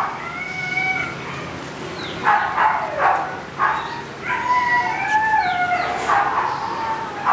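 Siberian husky vocalizing: a string of pitched whining calls that bend up and down, short ones through the first half and a longer wavering call around the middle.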